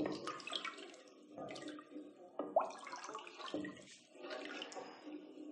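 Wooden spoon stirring a thin yogurt and gram-flour kadhi mixture in a steel pot: faint liquid sloshing in irregular strokes about once a second.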